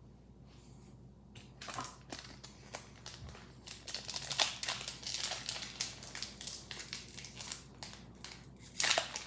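A foil Pokémon Paradox Rift booster pack wrapper crinkling as hands handle it and open it. The crinkling starts about a second and a half in and runs as a dense, irregular crackle.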